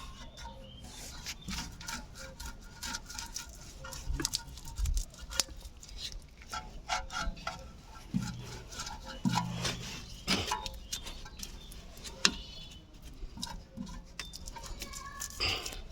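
Irregular clicks, clinks and light knocks of small metal brake parts and hand tools being handled during a brake job, with some brief scraping.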